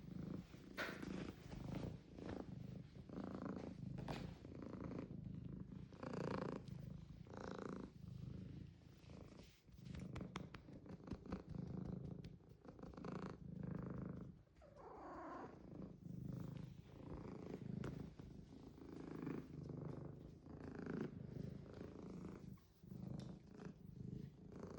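Domestic cat purring close up, the purr swelling and fading in a steady rhythm of about one cycle a second.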